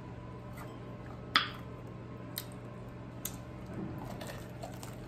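Close-miked eating sounds as a fried chicken wing is dipped in sweet and sour sauce and bitten, with one sharp click about a second and a half in and a few fainter clicks after it, over a steady low hum.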